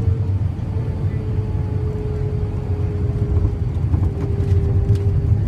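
Airliner cabin noise as the plane rolls along the ground: a steady low rumble, with a faint held engine tone that sags slightly in pitch.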